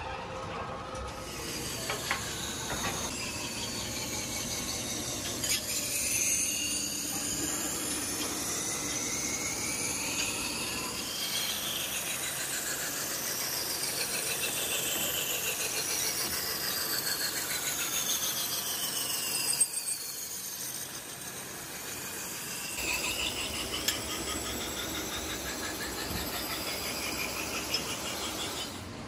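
Metal being machined in a workshop, squealing steadily with high pitches that glide up and down. The sound shifts abruptly about eleven seconds in and again near twenty-three seconds, as one machining pass gives way to another.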